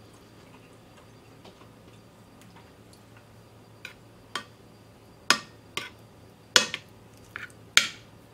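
Metal spoon clinking against a ceramic bowl while scooping up curry and rice. It starts about four seconds in with a few soft taps, then three sharp clinks about a second apart.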